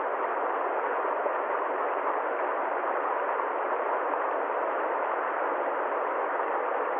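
A steady, even hiss of noise with no pitch, rhythm or separate events, holding one level throughout, with nothing deep and nothing high in it.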